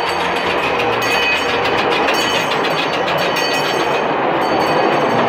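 Miniature park train running along its track, heard from aboard: a steady rumble and clatter of wheels on rail that grows a little louder.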